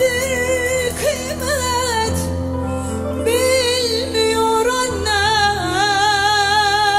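A woman singing a slow song with a wide vibrato and sliding ornaments on held notes, over instrumental backing with sustained low notes.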